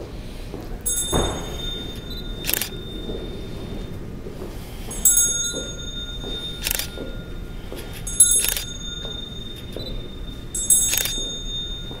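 A small hand bell is struck four times, each single stroke ringing out for two to three seconds before the next. Each ring is a separate toll for one person being remembered.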